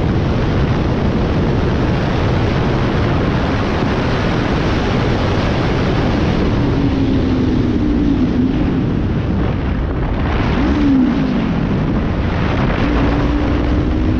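Heavy wind rushing over the microphone of a sport motorcycle riding at speed, with the bike's engine note faint underneath. About two-thirds through, the engine pitch briefly rises and falls.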